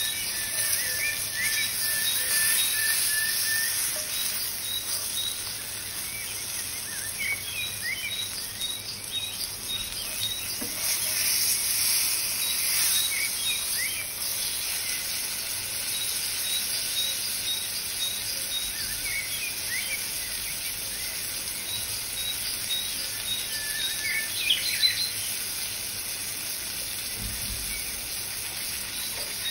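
Background nature-sound track of birds chirping, with insects trilling in short repeated pulses, over a steady high hiss.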